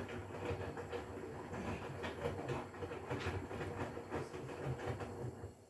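Hotpoint Core inverter-motor washing machine drum turning, with a busy, uneven clatter of knocks and thumps as it runs. It stops just before the end.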